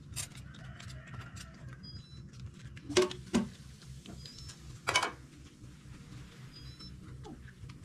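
Spoons clinking and scraping on china plates, with many light clicks and three louder knocks about three seconds in, a moment later, and about five seconds in, over a low steady hum.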